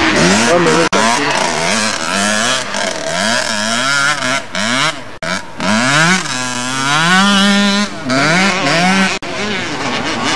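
Motocross motorcycle engines revving hard as riders accelerate, shift and back off around the track. The pitch climbs and falls again and again, with one longer climb held high for a moment about seven seconds in.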